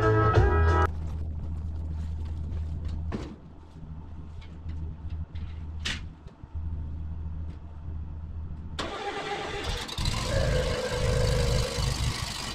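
Zero-turn mower's gas engine starting about nine seconds in and then running. Before it come a low steady hum and a few light knocks.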